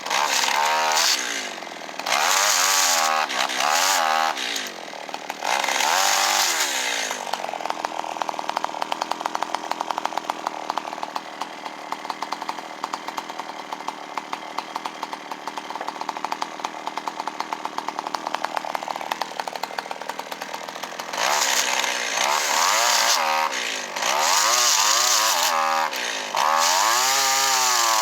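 Kyoritsu CS-362 two-stroke chainsaw running again after its no-spark ignition fault was repaired. It is revved up and down in short bursts for several seconds, settles to an even idle, then is revved repeatedly again from about two-thirds of the way in.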